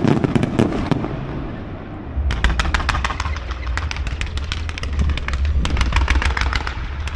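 Fireworks crackling in rapid, dense volleys of sharp pops over a low rumble. One volley fades about a second in, and a second long run of crackling starts about two seconds in.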